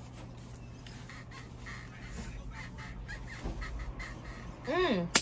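Soft rustling and handling as gloved hands work hair dye into the hair. Near the end comes a woman's short, high-pitched squeal that rises and falls in pitch, a reaction to the dye on her scalp, and then a sharp click.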